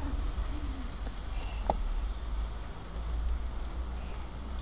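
Water poured from a plastic bottle onto hot charcoal in a clay pot, hissing steadily as the embers are doused, over a low rumble. Two short clicks come about a second and a half in.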